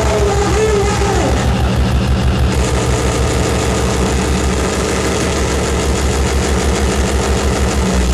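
Live harsh-noise electronics from a table of effects pedals and a mixer: a loud, dense wall of distorted noise over a rapidly pulsing low throb. In about the first second a voice through the microphone, processed and bending in pitch, sits on top of the noise.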